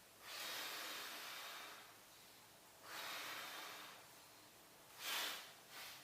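A man breathing out hard to deepen a seated spinal twist: two long exhales, then two short, sharper ones near the end.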